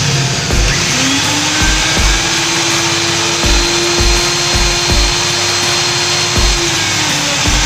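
Hand-held circular saw running steadily, most likely cutting wood, with a dense steady noise and a held motor tone. Dull low thumps recur about every half second beneath it. The saw is running again after its broken carbon-brush connector wire was reconnected.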